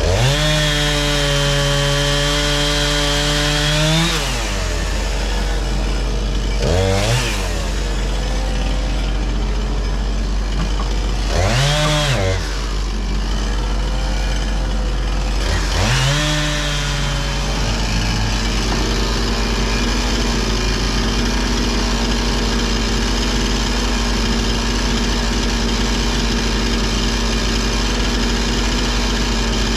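Chainsaw revved to full throttle and held for about four seconds, then blipped briefly twice and revved once more, with a steady engine running underneath. After the last rev only the steady engine drone remains.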